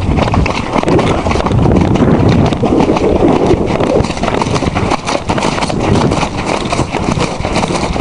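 Coloured cob cantering over grass, its hoofbeats coming fast and continuous under the rider.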